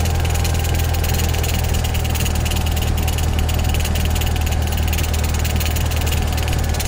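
Single-engine light aircraft's piston engine and propeller running steadily at low taxi power, heard from inside the cockpit as a steady low hum.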